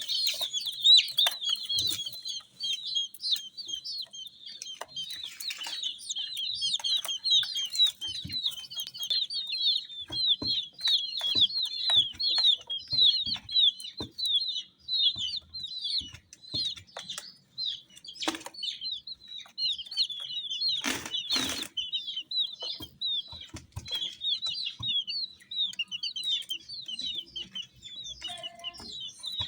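A group of baby chicks peeping continuously, many short high chirps overlapping. Scattered light knocks run under them, and there is a brief louder noisy burst about two-thirds of the way through.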